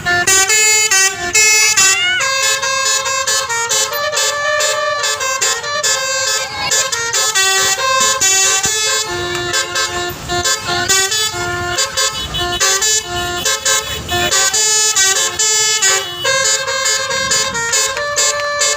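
Basuri multi-tone 'telolet' bus air horn playing a fast tune, one short pitched note after another with hardly a break, with a brief rising slide about two seconds in.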